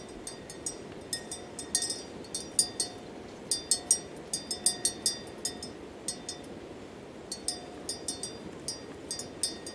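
Metal bell on a grazing water buffalo's neck clinking irregularly as the animal moves its head to crop the grass, a few short ringing clinks a second in uneven clusters.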